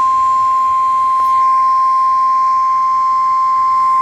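NOAA Weather Radio warning alarm tone: one steady, unbroken tone of about 1050 Hz. It announces that a warning bulletin, here a severe thunderstorm warning, is about to be read.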